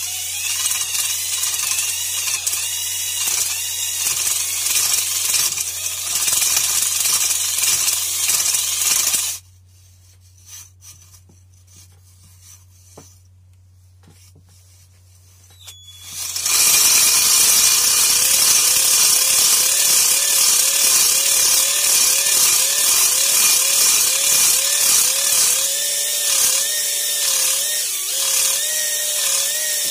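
Cordless drill spinning a cylinder hone inside an engine cylinder bore, the hone's stones grinding against the bore wall. It runs for about nine seconds, stops for about seven with only a few small clicks, then starts again and runs on.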